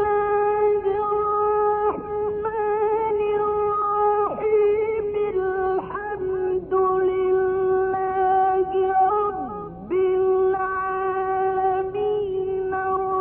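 Melodic music: a single line, mostly held on one steady note with short ornaments, and one slide down and back up near the end.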